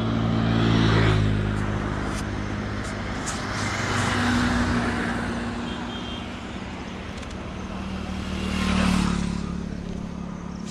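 Road traffic passing close: engines and tyres swell up and fade three times, loudest about a second in, again around four and a half seconds, and near nine seconds, over a steady low engine hum.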